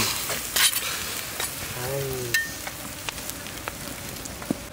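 Whole fish sizzling on a wire grill over hot charcoal, a steady hiss with many small crackles.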